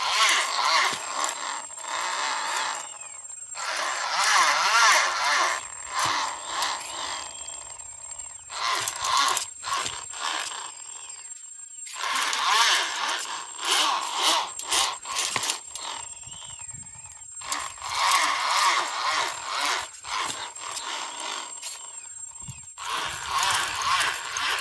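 Tethered high-aspect-ratio carbon-fibre kite wing and its line rushing through the air in figure-eights: a whooshing rush with a warbling hum that swells and fades in repeated surges about every five to six seconds as the wing speeds up and slows through each loop.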